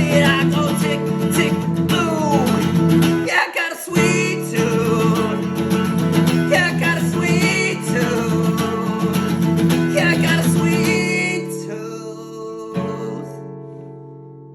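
Guitar-led music with a gliding melody over held notes, thinning out and fading near the end.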